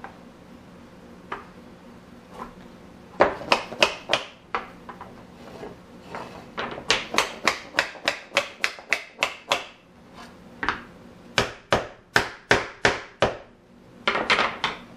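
Mallet knocking glued hardwood chair legs and stretchers together: runs of quick, sharp wooden knocks, about four or five a second, with short pauses between the runs and a dense flurry near the end.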